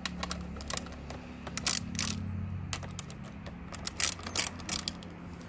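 Socket wrench with a 10 mm socket clicking in short, irregular runs as bolts are being loosened.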